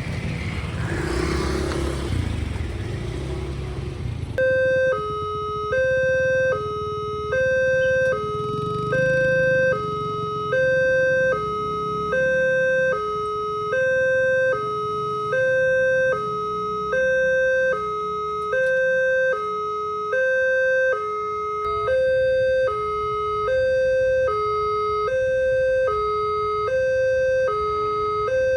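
Railway level-crossing warning alarm: an electronic two-tone signal that starts suddenly about four seconds in and switches evenly between a higher and a lower tone, about one cycle every two seconds. Road traffic noise is heard before it starts and underneath it.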